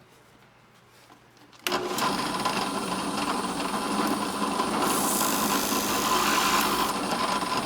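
An electric drill spinning a plug-cutting bit through spruce to cut out a round cleat: after a near-silent start, it starts suddenly about two seconds in and runs steadily with a constant whine.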